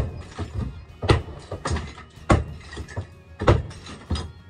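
Demolition of an old plaster bathroom wall: sharp knocks and crumbling crashes about once a second as chunks are struck and broken off.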